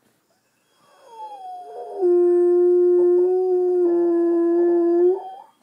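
Pet dog howling. The howl swells in about a second in and slides down in pitch, then holds one long steady note for about three seconds and breaks off with a brief rise at the end. He is howling along to a playback of his own recorded howl.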